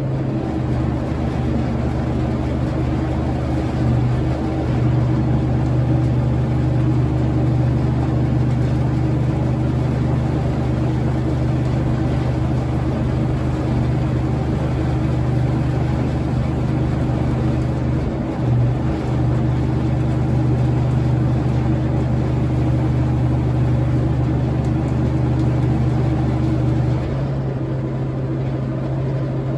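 The M816 military wrecker's six-cylinder diesel engine running steadily while it powers the boom lifting a heavy motor, easing off slightly near the end.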